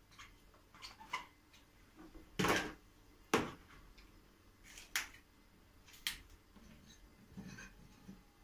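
Scattered knocks and clatters of cucumbers and plastic bowls being handled as cucumbers are packed into a large plastic jar for pickling. The loudest is a short rattle about two and a half seconds in, followed by a sharp knock, with lighter clicks around it.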